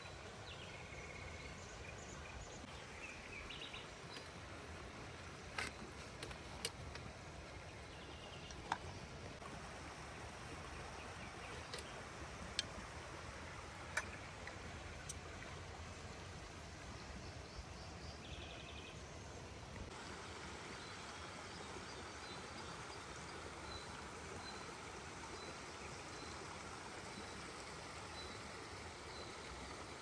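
Outdoor ambience: a steady faint rush, like running water from a stream, with brief bird chirps and a few sharp clicks. In the second half a faint high note repeats about once a second.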